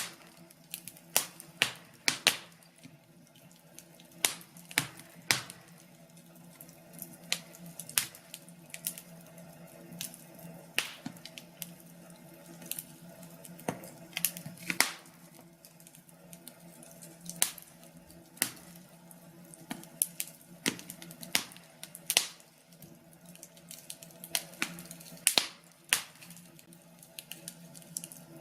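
Wood fire crackling, with sharp pops and snaps at irregular intervals over a faint steady background.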